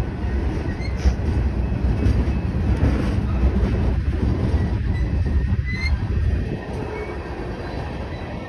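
Freight train's tank cars and hoppers rolling past on steel wheels: a steady rumble of wheels on rail with a few brief, faint high squeaks. The low rumble eases about six and a half seconds in.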